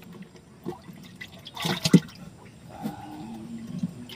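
Water splashing and sloshing in a boat's fish hold as a hand reaches in to grab a caught toman (snakehead fish), with the loudest splash a little under two seconds in.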